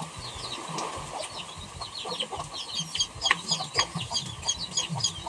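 Chickens clucking, with many quick high chirps overlapping, busier and louder from about three seconds in.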